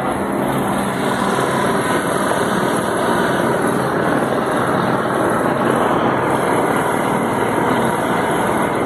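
Single-rotor helicopter flying overhead, its engine and rotors making a steady, dense noise.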